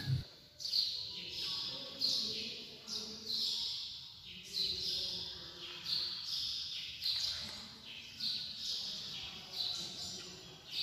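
A bird calling over and over inside the quiet church: a short, high chirp repeated about every three-quarters of a second.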